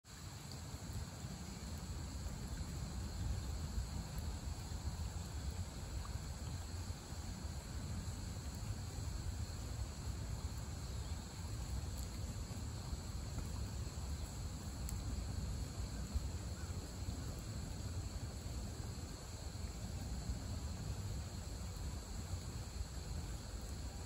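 Steady outdoor background noise: a low rumble with faint, steady insect chirring high above it.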